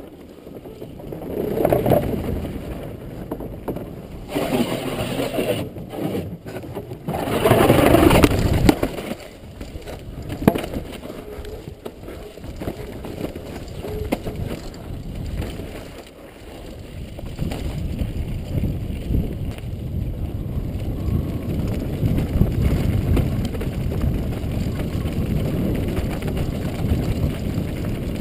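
Downhill mountain bike descending at speed, heard from a helmet-mounted camera: wind rushing over the microphone mixed with the rattle and crunch of tyres and bike over a wooden boardwalk and rough dirt and gravel trail. Louder surges come in the first several seconds, then a steadier rumble.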